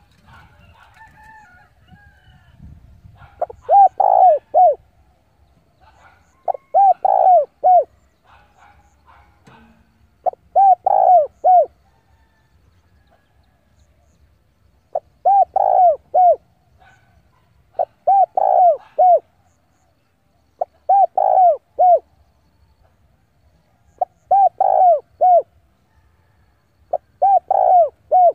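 Spotted dove cooing its song: eight short phrases of three or four notes each, repeated about every three to four seconds, the call of a decoy bird luring wild doves. Faint chirps are heard in the first couple of seconds.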